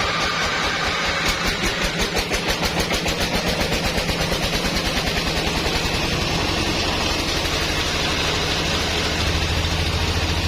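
An engine running, chugging with an even pulse of several beats a second that smooths into a steadier, deeper hum about six seconds in.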